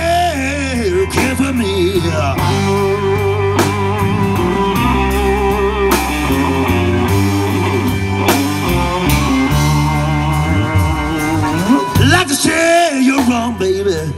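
Live blues band playing, with an electric guitar (Fender Stratocaster) taking a lead between vocal lines, its bent and wavering notes over a steady bass and drum groove.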